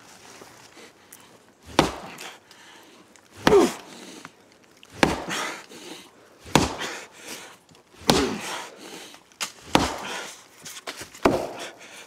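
A fist repeatedly punching a tree trunk: seven hard blows about a second and a half apart. A short, falling pained cry follows some of them.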